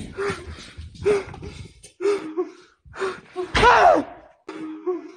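A man gasping and panting in short, voiced breaths about once a second, as if out of breath from running. A loud, wavering cry comes a little past halfway.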